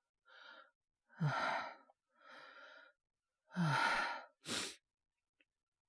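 A man breathing heavily and sighing twice with his voice, quieter breaths between the sighs and a short sharp breath just after the second. He is voiced as feverish with a cold and aching all over.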